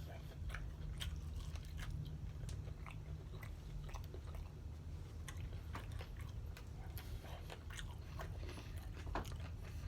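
Someone eating chicken wings: quiet chewing with scattered small crunches and wet mouth clicks over a steady low hum.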